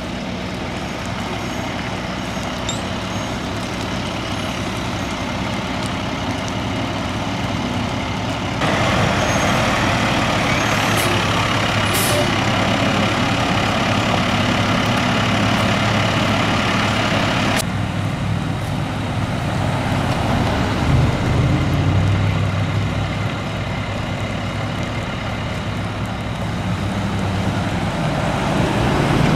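A heavy vehicle's engine running steadily. A loud, even hiss starts suddenly about a third of the way in and cuts off about nine seconds later. The engine swells briefly a little later.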